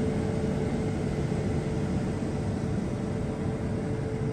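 Heavy engine and machinery running steadily: a constant low drone with a steady hum that holds one pitch throughout.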